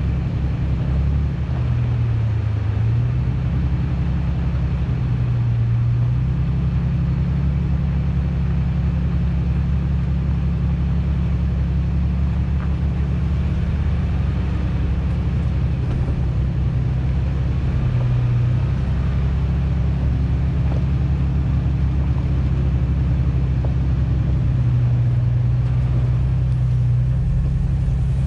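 Supercharged Toyota Tacoma driving, heard from inside the cab: a steady low drone of engine and road noise, its pitch shifting slightly now and then.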